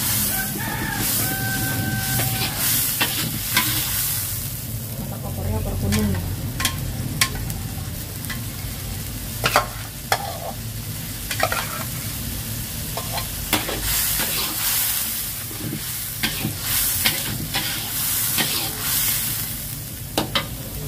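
Metal spatula scraping and stirring a thick yellow mixture in a steel wok over a wood fire, the mixture sizzling as it fries, with repeated sharp scrapes of metal on the pan.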